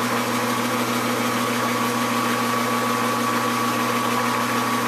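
Metal lathe running steadily with a low hum and a higher whine, turning a rifle barrel while a chamber reamer cuts the chamber to depth.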